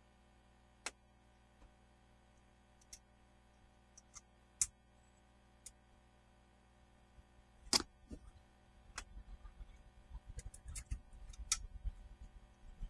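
Scattered light clicks and taps of hand tools and parts being handled. A louder knock comes about eight seconds in, followed by low rumbling handling noise with more clicks.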